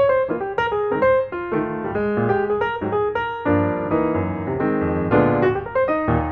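Background instrumental music: a piano playing a quick, flowing run of notes.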